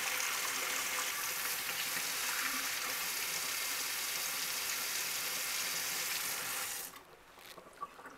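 Hot tap water running steadily over a chef's knife blade and splashing into a stainless steel sink, shut off abruptly about seven seconds in; a faint click or two follows.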